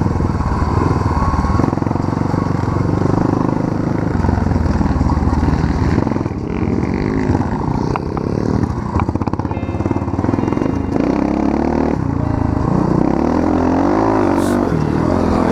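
Small off-road engine running under riding load, revving up and down as the throttle changes, with the pitch rising and falling a few times.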